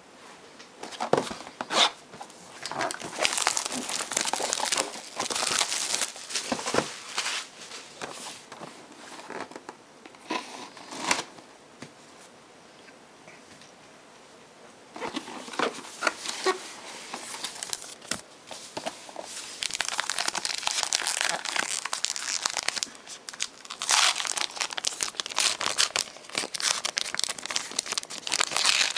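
Plastic wrapping on a box of trading-card packs being torn and crumpled as the box is unwrapped and opened: crinkling and tearing in spells, with a quieter pause around the middle.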